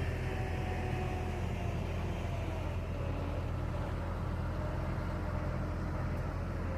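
Diesel engine of a JCB 426ZX wheel loader running steadily, with a faint whine that drifts slowly lower.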